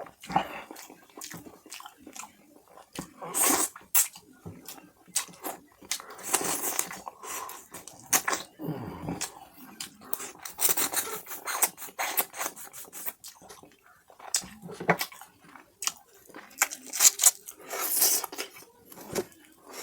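Close-miked chewing and wet mouth sounds of someone eating mutton curry with puri, in irregular bursts of smacking clicks.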